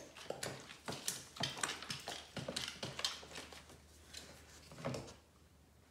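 Wooden craft sticks knocking and scraping against the plastic bottoms of storage bins while clear glue is stirred: a quick, irregular run of clicks and taps that stops near the end.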